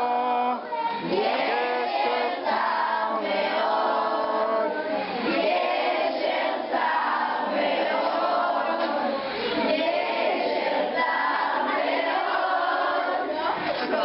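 A group of voices, children among them, singing together in chorus.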